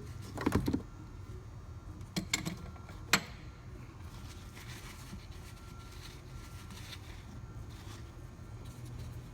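A few short knocks and clicks, about half a second, two seconds and three seconds in, over a steady low hum.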